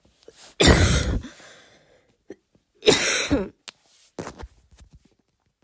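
Two loud, harsh forced coughs from a woman, about two seconds apart: deliberate attempts at a barking cough. A few fainter short sounds follow.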